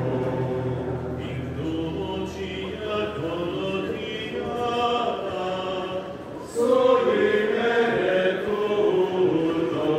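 Group of men's voices chanting a liturgical chant together, growing louder about six and a half seconds in.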